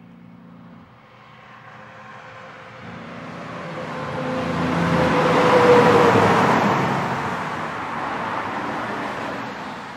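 A Volvo B-double semi-trailer truck passing at highway speed. Diesel engine and tyre noise build to a peak a little after halfway, with a whine that drops in pitch as it goes by, then fade as it moves away.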